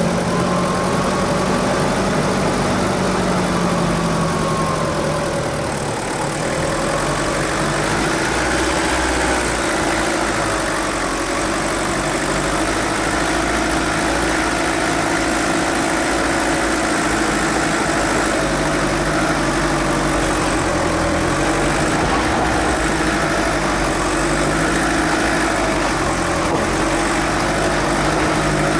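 Suzuki Grand Vitara 2.0 TD turbodiesel engine running steadily at low revs under load as the 4x4 crawls up a steep rocky dirt track, its pitch drifting slightly up and down.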